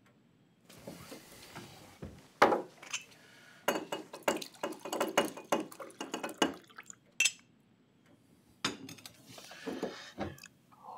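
Glass clinking and knocking as a crystal decanter, its glass stopper and a cut-glass tumbler are handled: a dense run of clinks for several seconds, a pause, then a few more near the end.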